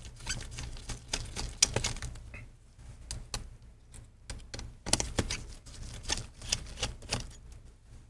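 Small Phillips screwdriver removing screws from a laptop's metal hinge: irregular light clicks and ticks as the bit engages and turns the screws and taps the metal.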